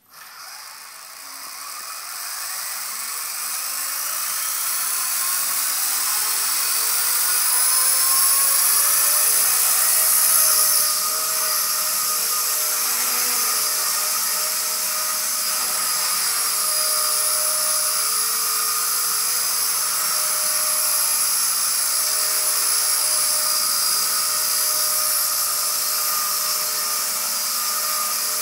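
Walkera V120D02S micro RC helicopter's electric motor and rotor spooling up, a whine rising in pitch and loudness over the first several seconds, then holding a steady high whine in flight.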